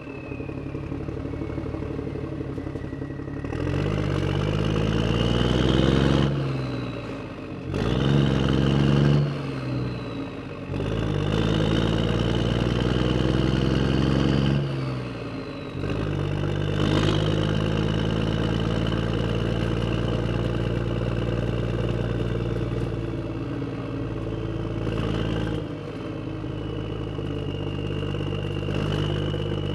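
A motor vehicle's engine rising in pitch three times, each climb falling away again, then running steadily at a constant speed for the second half.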